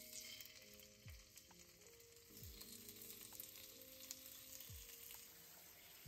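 Chicken breast sizzling as it fries in hot oil in a cast-iron skillet: a steady frying hiss.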